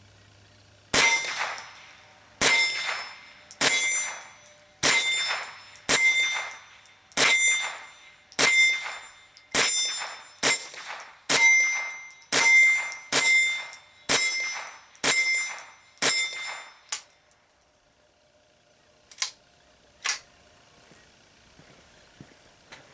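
Colt Courier .22 LR semi-automatic rifle firing fifteen shots at a steady pace of about one a second, a full load for its 15-round tube magazine. Each sharp crack has a short ringing tail. Two lighter clacks follow a few seconds after the last shot.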